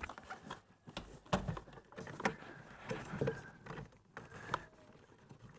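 Hands working a door-panel light's plastic electrical connector and wiring: rustling and scraping, with a few sharp plastic clicks about a second apart.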